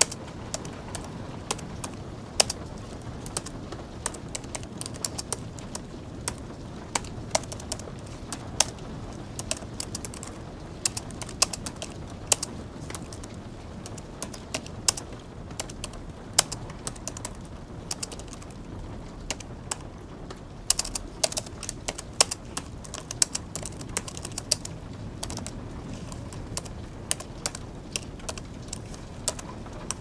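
Typing on a low-profile Apple Magic Keyboard: quick, irregular key clicks in runs with short pauses, over a steady soft background hiss.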